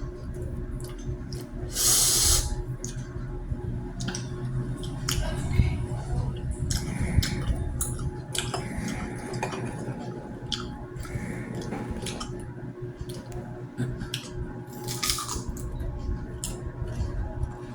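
Close-up eating sounds: chewing with many small clicks and crinkles, and two short hissing bursts, one about two seconds in and one near the end, over a steady hum.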